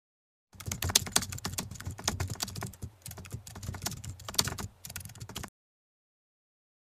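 Typing sound effect: a fast, uneven run of key clicks that starts about half a second in and cuts off suddenly about five seconds later.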